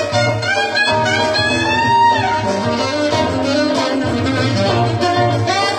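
Live band music led by a saxophone solo over a bass line. The sax bends upward into a held high note about two seconds in.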